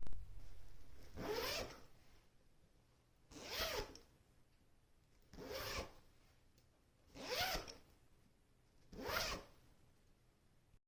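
A zipper being zipped open and closed, one pull after another: a sudden knock right at the start, then five short zipping strokes about two seconds apart, each lasting about half a second.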